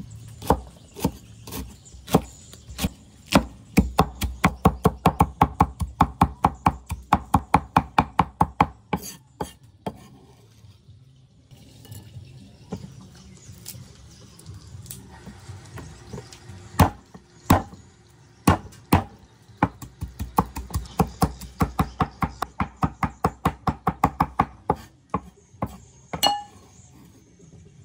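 Heavy cleaver chopping food on a thick wooden chopping block: two long runs of quick, even knocks, with a pause of several seconds between them.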